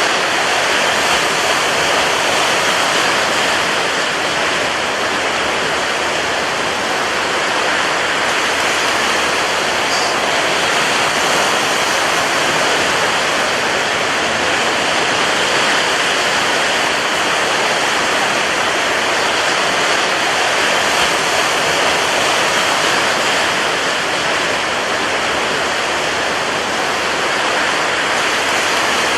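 Rough sea with strong wind: a loud, steady rush of surf and wind noise with no distinct breaking waves standing out.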